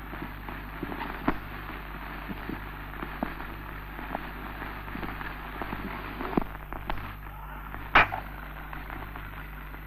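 Steady hiss and low hum of a worn early optical film soundtrack, crackling with scattered irregular clicks and pops. A louder splice pop comes about eight seconds in.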